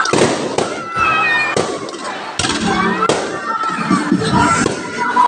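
Fireworks going off: several sharp bangs about a second apart, over crowd voices and music.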